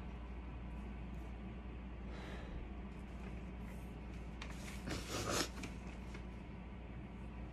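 A person sniffling and breathing while tearful: a soft sniff about two seconds in and a louder one about five seconds in, over a low steady room hum.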